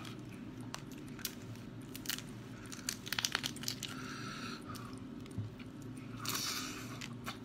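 Cooked mantis shrimp shell crackling and clicking as it is pulled apart by hand, with a quick run of clicks about three seconds in, then the shrimp being bitten into and chewed near the end.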